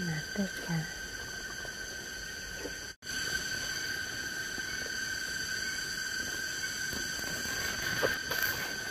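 Steady, high-pitched insect drone, one unbroken whining tone with overtones, with a few faint ticks near the end. The sound drops out briefly about three seconds in.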